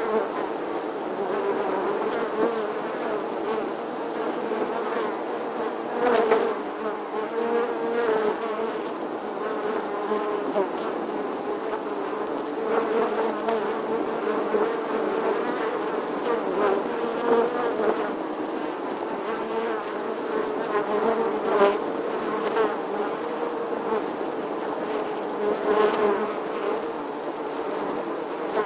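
A bee buzzing: a continuous buzz that wavers slightly in pitch and swells louder several times.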